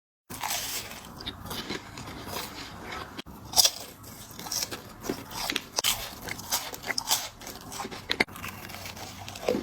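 Close-miked biting and crunching of crisp chocolate biscuit snacks: a string of sharp, irregular crunches with chewing between them.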